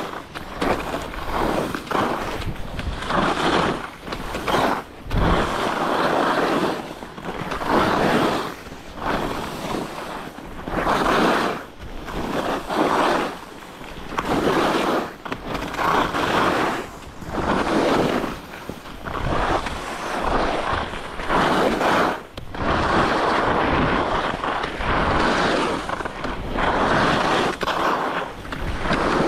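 Head alpine skis carving turns on a groomed piste, the steel edges scraping the snow in swells about once a second, one swell per turn.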